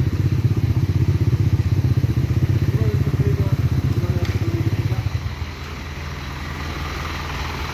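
Motorcycle engine idling close by with a rapid pulsing beat, which drops away about five seconds in, leaving a quieter, steadier truck engine idle.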